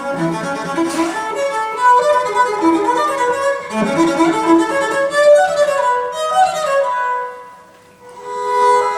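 Recorded classical string music, a violin to the fore over lower bowed strings, played back through a high-end hi-fi system with Wilson Benesch Resolution loudspeakers. The music dies away briefly near the end, then held notes come back in.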